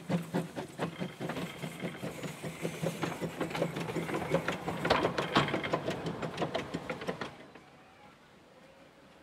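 Hunslet narrow-gauge saddle-tank steam locomotive 'Irish Mail' pulling away, its exhaust chuffs quickening from about two a second to a rapid beat. They are loudest as it passes close by, about five seconds in, and cut off abruptly about seven seconds in.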